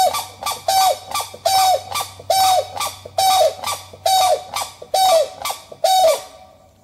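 Grey crowned crane giving a steady series of short honking calls, a little under one a second, each dropping in pitch at its end and fading out near the end.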